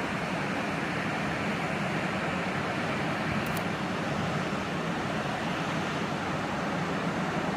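Sea surf making a steady, even rushing noise, with no separate wave surges standing out.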